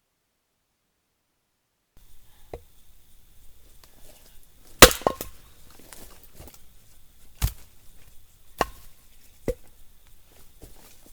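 Firewood being chopped with a blade: a series of sharp, irregularly spaced wooden chops, the loudest about five seconds in. The first two seconds are dead silent.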